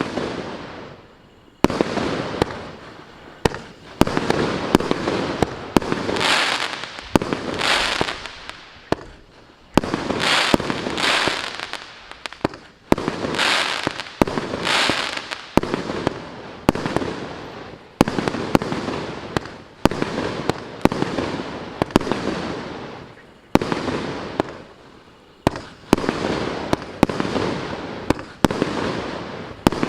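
A 66-shot consumer fireworks cake firing its shots one after another, about one to two a second, each a sharp bang whose sound fades over about a second.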